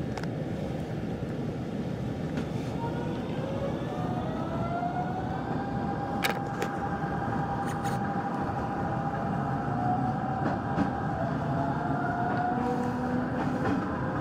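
Hanshin 5500-series electric train heard from inside the leading car as it gathers speed. The VVVF inverter and traction motors whine in several tones that climb in pitch twice, over the steady rumble of wheels on rail, with a few sharp clicks from the track.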